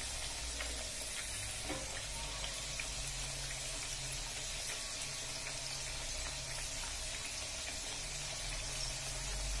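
Murukulu deep-frying in hot oil in a pan: a steady bubbling sizzle, with a low hum underneath.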